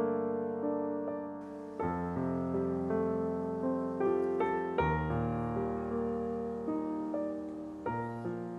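Background piano music: gentle chords that ring and slowly fade, with a new chord struck about every three seconds.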